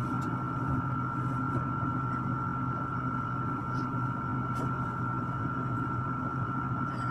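Steady hum of an electric stand fan running, with a thin high whine over it and a few faint ticks.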